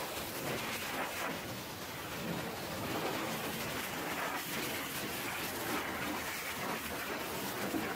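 High-pressure washer jet spraying water onto a diamond-plate metal toolbox on a dump truck, a steady spray noise.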